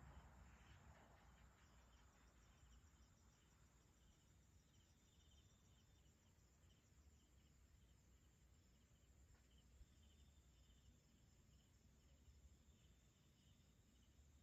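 Near silence: faint night insects chirping in a steady repeated pulse over a low hum.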